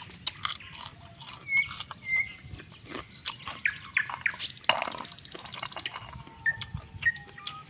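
Small birds chirping in short single notes, mixed with sharp close clicks and crackles and a brief rapid rattle about five seconds in.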